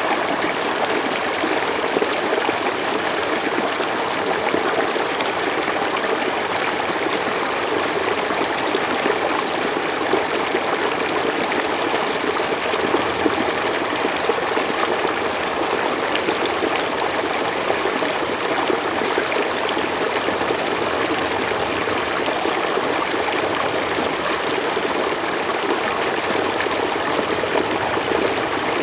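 A river or stream flowing steadily, a constant rush of running water with a light trickling texture and no breaks.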